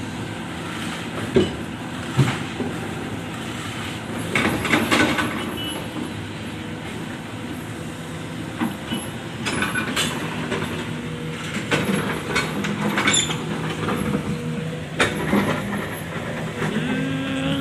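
Jonyang JY623E excavator's diesel engine running steadily while it digs soil and loads a dump truck, with repeated metallic clanks and scraping from the bucket and the load. The engine pitch rises near the end.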